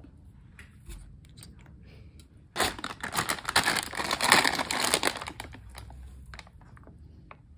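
Snack packaging crinkling and rustling as packets are handled. It starts suddenly about two and a half seconds in, runs for about three seconds, and is preceded and followed by a few faint clicks.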